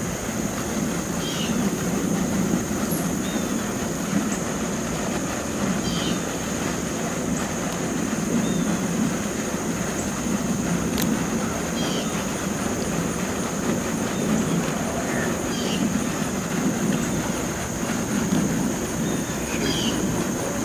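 Steady low rumbling background noise with a thin, steady high whine above it. Short chirps sound every couple of seconds.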